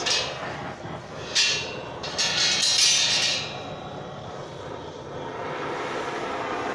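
Cutting torch flame burning with a steady hiss as it heats quarter-inch round steel bar. It surges louder and sharper briefly about a second and a half in, and again from about two to three and a half seconds, then settles to a quieter, even hiss.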